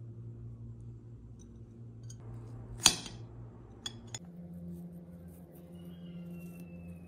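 A sharp clink on a porcelain saucer about three seconds in, then two lighter ticks a second later as a knife cuts through a ma'amoul cookie to the plate, over a steady low hum.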